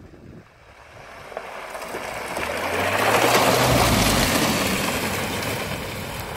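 Hyundai Tucson SUV pulling away and driving past at close range on a gravel track, its engine hum and the crunch of its tyres on the gravel growing louder to a peak about three and a half seconds in, then fading as it drives off.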